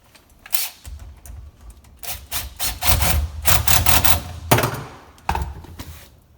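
A run of sudden knocks, rubs and clatters from hands working with plumbing parts under a sink, busiest in the middle few seconds.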